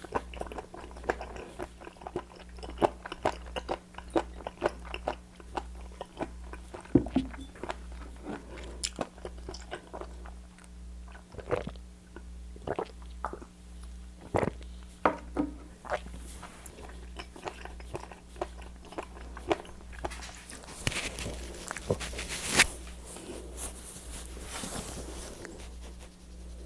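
Close-miked chewing and crunching of raw seafood, many quick wet crunches at first and sparser bites later, with a stretch of rustling noise near the end. A steady low electrical hum sits under it.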